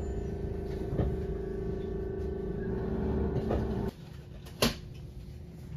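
Steady electric hum of a Keihan 10000-series commuter train standing at the platform, with a few held tones. It cuts off suddenly about four seconds in, leaving a fainter hum, and a single sharp click follows shortly after.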